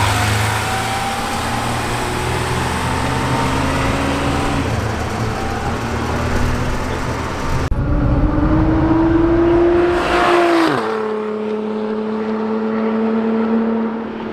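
Sports car engine and exhaust running at speed; after a cut about eight seconds in, a car accelerates with its note rising, then the pitch drops sharply as it passes by at about eleven seconds and holds a steady lower note as it pulls away.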